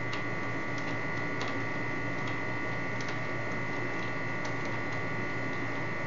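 Faint, scattered metallic clicks as a threaded retaining holder on a mortise lock's knob shank is turned off by hand, over a steady electrical hum.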